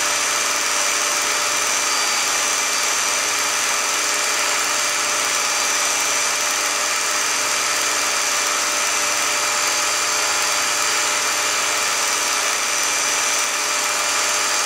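Film projector running: a steady mechanical whir with a hiss, unchanging throughout.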